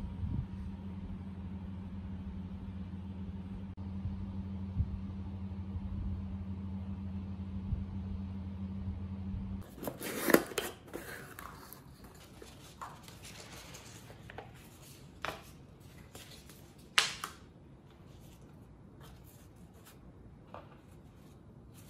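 A steady low hum for the first half, which stops suddenly about ten seconds in. Then a small cardboard box is opened and handled by hand: flaps and card rustling, with scattered sharp taps and clicks, the loudest just after the change.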